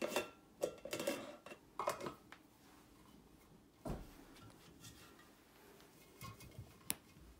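Glass jars of broth being handled: white plastic lids put on and the jars lifted and moved, giving scattered knocks and light clatter, with a sharper click near the end.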